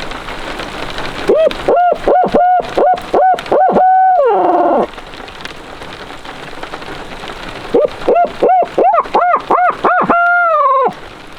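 Two series of barred-owl-style hoots, each a quick run of about eight notes ending in a long falling drawl, over steady heavy rain.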